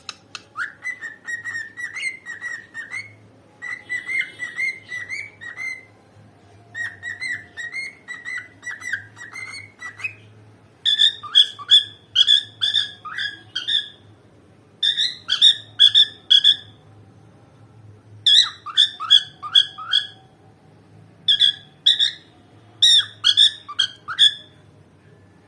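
Cockatiel whistling in a series of phrases, each a quick run of short chirpy notes lasting a second or two, with brief pauses between. The phrases get louder and brighter a little before halfway through.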